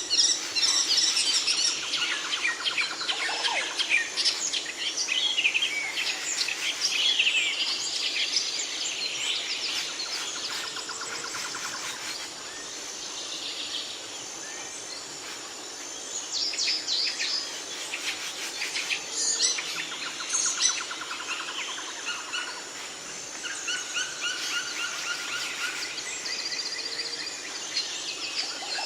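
Several songbirds chirping and singing together, with quick trills and short repeated notes, easing off for a few seconds in the middle before picking up again. A thin, steady high tone runs underneath.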